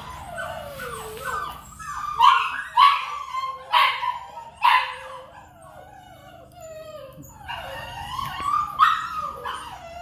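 Puppy whining and yelping in short calls that bend in pitch: a run of four loud, sharp yelps about two to five seconds in, then a quieter spell, then more whines near the end.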